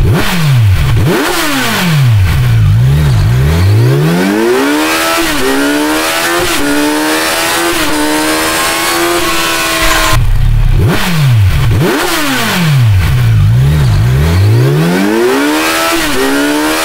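Kawasaki Z900 inline-four revving through a GRmoto X Series aftermarket exhaust: a string of quick throttle blips, then the revs climbing slowly and steadily. It cuts off sharply about ten seconds in and the same blips-then-climb sequence plays again.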